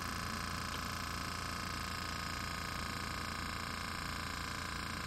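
Homemade 304 stainless-steel thermoacoustic Stirling engine running, giving off a steady, unchanging hum of several pitches held together.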